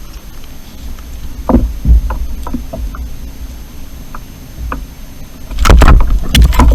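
Handling noise from a kayak angler working a tangled, hooked fish free of the line. Scattered knocks come over a low rumble, then a burst of loud clattering and rustling about five and a half seconds in.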